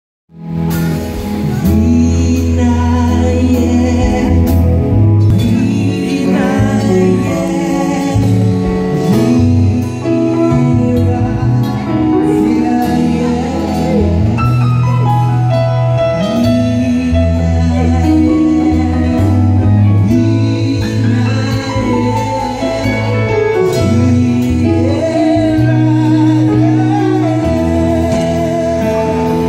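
Live gospel band playing with singers: keyboard, electric guitar and congas under sung vocals, with held bass notes.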